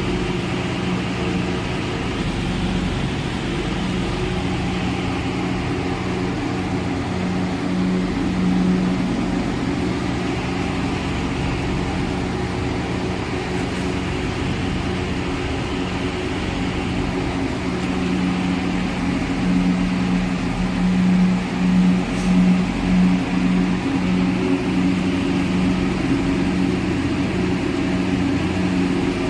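Steady mechanical hum with a low droning tone over a haze of noise, like a motor running, swelling slightly a little over two-thirds of the way through.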